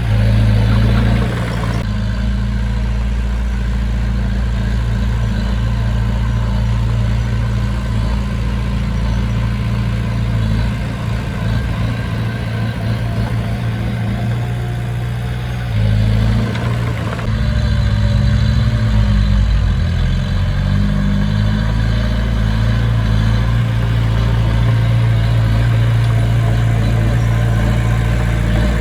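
Diesel engine of heavy earthmoving equipment running steadily with a deep, low drone. It is briefly louder at the start, eases off in the middle, and picks up again about two-thirds of the way through.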